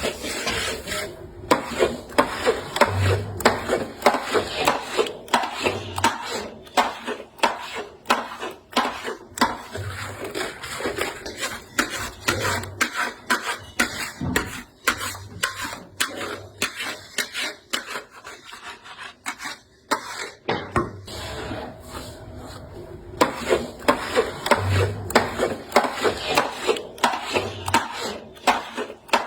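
A spatula scraping and stirring thick halwa around a pan, in steady repeated strokes, with a quieter stretch about two-thirds of the way through.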